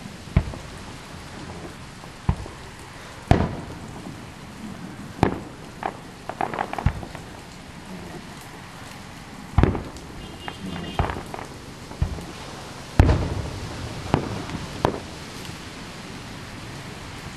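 Aerial fireworks shells bursting: about a dozen booms at irregular intervals, with a quick run of crackling pops about six to seven seconds in and the loudest boom about thirteen seconds in. Under them runs a steady hiss of rain.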